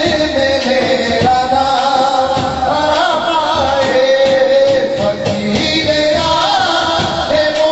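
A man singing a Punjabi naat into a microphone, holding long, wavering melodic notes.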